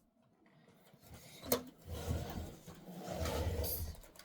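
Handling noise: a sharp click about one and a half seconds in, then rustling and low knocks as something is moved about.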